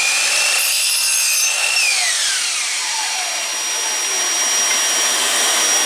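Electric miter saw cutting a thin wooden lath strip: the motor runs at a steady high whine through the cut, then winds down with a falling whine about two seconds in. A shop vacuum runs on with a steady high whine.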